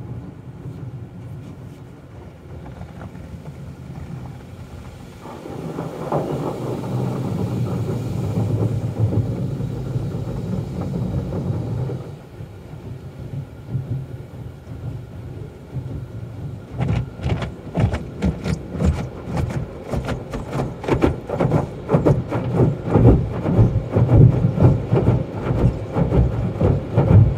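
Automatic car wash heard from inside a truck's cabin: a steady rumble of water and foam spraying over the windshield and body. From about two-thirds of the way through comes rapid, irregular slapping and thudding as the wash's scrubbing equipment beats against the truck, growing louder near the end.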